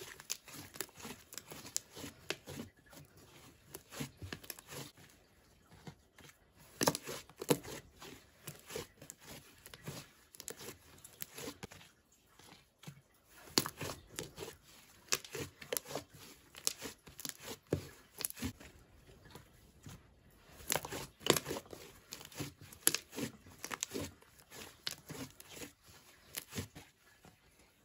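Thick cream-white slime being kneaded, folded and pressed by hand, giving irregular sticky crackles and small pops in clusters, loudest about seven seconds in and again past twenty seconds.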